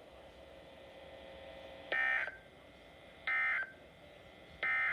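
Three short bursts of Emergency Alert System SAME digital data, the warbling two-tone end-of-message code that closes a warning broadcast. The first burst comes about two seconds in, and the bursts are evenly spaced about a second and a half apart.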